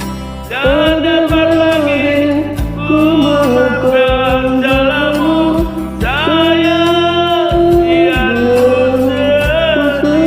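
Karaoke song with backing music and a lead melody of long held notes, phrases starting about half a second in and again about six seconds in.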